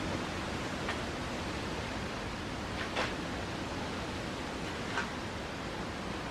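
Steady, even background hiss with three faint short taps, about one, three and five seconds in.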